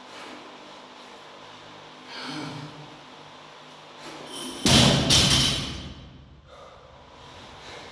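Loaded barbell with bumper plates dropped onto a rubber floor mat: a heavy thud about five seconds in, then a second hit as it bounces, fading within a second. Before it come two hard, heavy exhaled breaths from the lifter.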